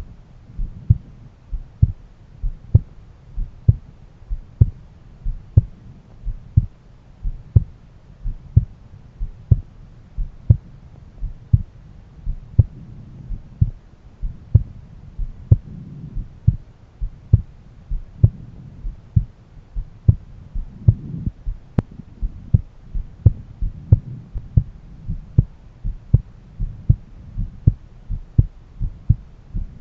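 A man's heartbeat heard through a stethoscope: regular lub-dub pairs of low thumps, with a faint low hum between the beats.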